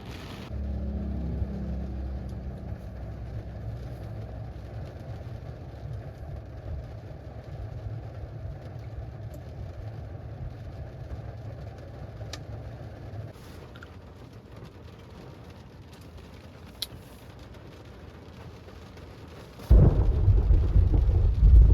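Rain falling on a car with a long, low rumble of thunder that fades about halfway through. A few sharp drip ticks follow, and a sudden loud low rumble comes near the end.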